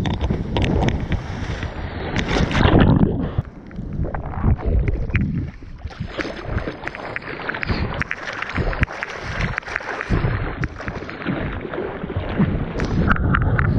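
Surfboard being hand-paddled through choppy sea: arms splashing and water sloshing against the board in irregular strokes, with wind buffeting the microphone of a waterproof action camera held close to the water.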